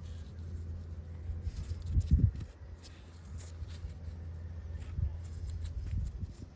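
Light clicks and handling noises as the brake pad retaining pins are pushed out of a Toyota FJ40's front disc brake caliper, with a dull thump about two seconds in over a steady low rumble.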